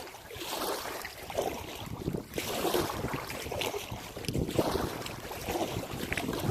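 Wind buffeting the microphone while water sloshes and laps against a kayak on open water, rising and falling unevenly.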